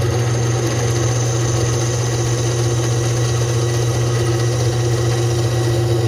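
Benchtop drill press running steadily as a 1/4-inch bit cuts into a 1/4-inch stainless steel bar held in a vise. A low motor hum sits under a thin, steady high-pitched whine.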